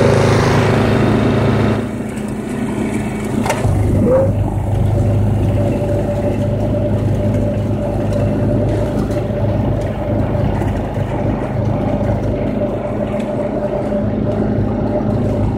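Snapper mower's engine running steadily. It is louder and rougher for the first two seconds, then drops, and its sound shifts again around four seconds in with a couple of clicks.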